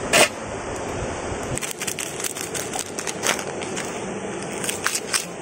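A metal pan lid clinks once just after the start. Then a pestle pounds and grinds shallots, garlic, chilies and berries in a metal bowl, an irregular run of knocks and crunches as sambal is crushed.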